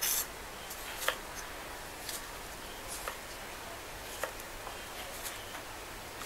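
Kitchen knife cutting a tomato into wedges on a cutting board: a short sharp tap of the blade on the board about once a second, over a faint steady hiss.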